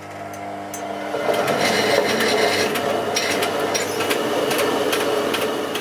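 Electric motor of a homemade Astrié-type grain mill humming as it drives the mill. From about a second in, a steady rough rasping takes over as the upper granite millstone turns and grinds wheat.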